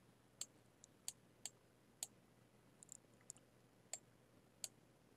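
Computer mouse clicking: about ten faint, sharp clicks at irregular intervals.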